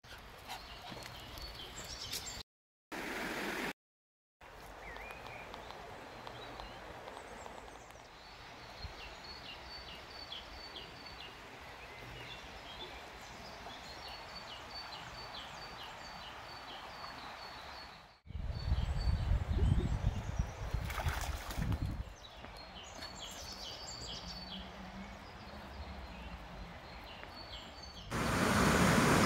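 Small birds singing in short repeated chirps over a steady hiss of a shallow, flowing river. About two-thirds of the way through, a few seconds of low rumbling break in, and near the end a much louder steady rushing noise starts suddenly.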